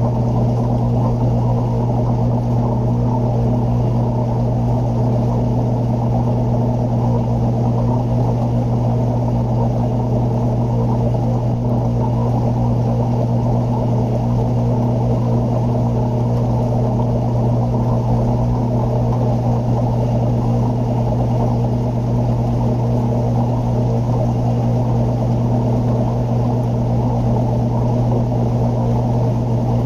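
Aquarium pump humming steadily: a low hum with a rougher buzz above it.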